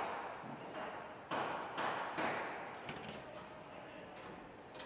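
Car body assembly-line noise: several sudden knocks or bursts in the first half, each trailing off in the hall's echo, then quieter, with a few faint sharp clicks near the end.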